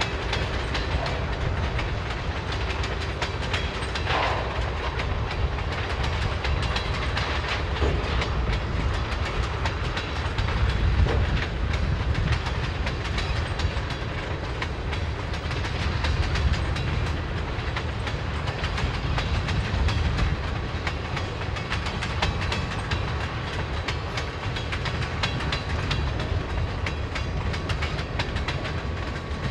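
Freight train of tank cars with a diesel locomotive rolling past, a steady rumble with wheels ticking over the rail joints.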